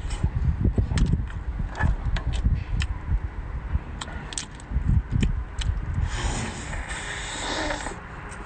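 Close-up eating sounds from a cooked brown crab being pulled apart by hand: crackling and clicking of shell and claws breaking, with wet chewing and smacking. About six seconds in comes a sustained slurp lasting about two seconds as the meat is sucked from the crab's body.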